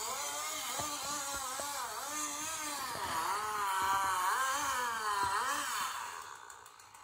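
Engine of a tree-cutting machine playing on the television, revving up and down in long smooth swells, then fading out about six seconds in.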